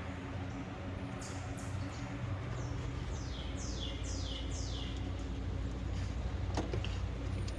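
A songbird calling in the background: a quick run of about seven short, high, falling chirps between one and four and a half seconds in, over a steady low hum. A single sharp click follows near the end.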